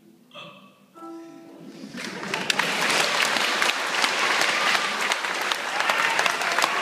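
A last short held note of the song, then audience applause breaking out about two seconds in and carrying on, with many individual claps standing out.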